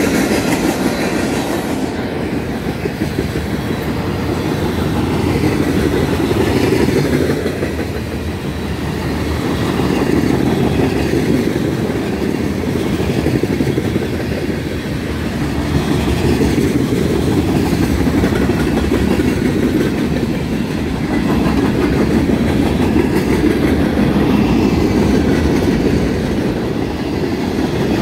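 Freight cars rolling past close by: a steady rumble and clatter of steel wheels on the rails, rising and falling slowly every few seconds.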